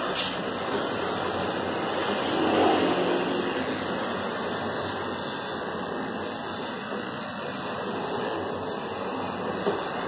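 Electric dog-grooming clipper fitted with a No. 7 blade running steadily as it shaves a cocker spaniel's muzzle, with a slight swell about two and a half seconds in.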